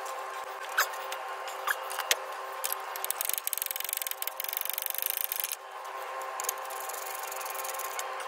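Hand ratchet clicking rapidly for about three seconds as bolts are run in on a pickup's front brake caliper bracket, after a few single sharp clicks of metal on metal.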